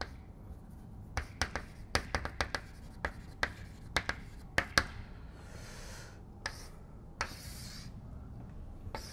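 Chalk writing on a blackboard: a run of sharp taps and clicks as letters are formed, then two longer scratchy chalk strokes near the middle and later on.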